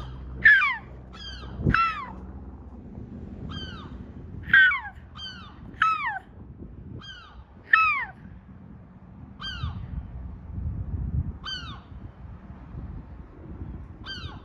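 A bird calling over and over: about a dozen short, harsh calls, each falling in pitch, some in quick pairs, with the loudest near the start and around the middle. A low thump about two seconds in.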